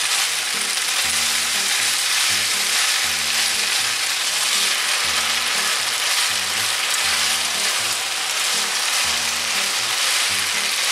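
Sliced pork and onions sizzling steadily in sesame oil in a frying pan, stirred with chopsticks as the ginger pork is cooked through to finish.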